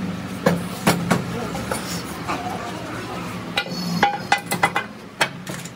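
Sharp metal knocks and clinks of tools and transmission parts being handled and tapped, scattered at first, then a quick run of them about four seconds in, over a steady low hum.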